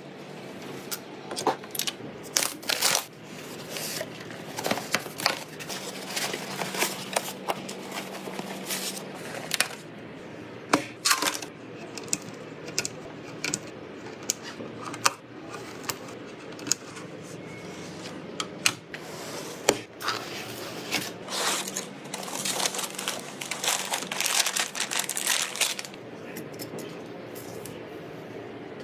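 Irregular clicks, taps and rustling of computer parts being handled and fitted together during a PC build, over a faint steady hum.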